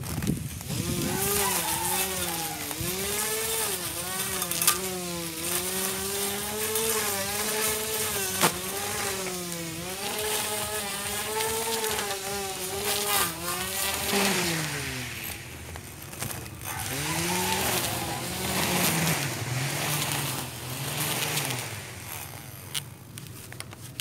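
Homemade push mower's 775 DC motor spinning its cutting blade through tall grass, a whining hum whose pitch keeps wavering up and down, with a few sharp ticks. In the last third the pitch drops and wanders lower, and the motor fades out near the end.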